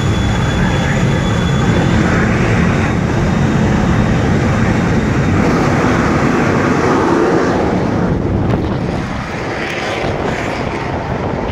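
Jet engine of a jet-powered drag truck, a loud steady roar with a high whine that fades within the first couple of seconds. The roar eases somewhat about eight seconds in.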